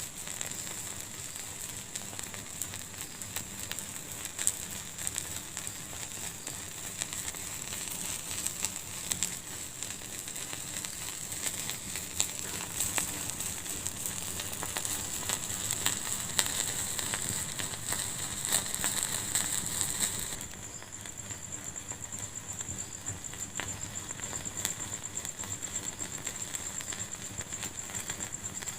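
Wood fire in a fireplace crackling, with irregular sharp pops over a steady high hiss. The level drops suddenly about two-thirds of the way through and the crackling carries on a little quieter.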